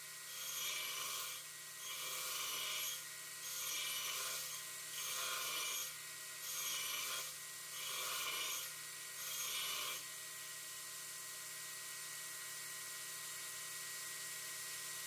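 Small belt grinder running while a steel axe head is pressed against the belt to sharpen the edge, a rasping grind in about seven short passes roughly a second apart. After about ten seconds the grinding stops and only the grinder's motor hum carries on.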